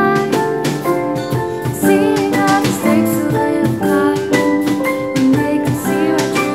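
Acoustic pop band playing an instrumental passage: piano and guitar chords under a wavering melody line, with light percussive ticks keeping time.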